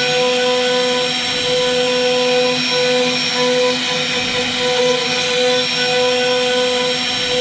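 CNC router spindle running at speed with its bit carving into a wooden panel: a steady high whine over a hiss of cutting, swelling and easing slightly as the bit works through the wood.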